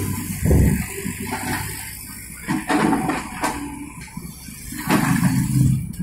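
SANY hydraulic excavator loading a Hino 300 dump truck: its diesel engine drones and surges in bursts under hydraulic load, with a rush of soil and stones falling into the truck's steel bed.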